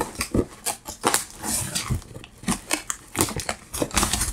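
A cardboard box being opened and its packed contents handled: irregular rustling and crinkling with quick clicks and knocks of cardboard and wrapping.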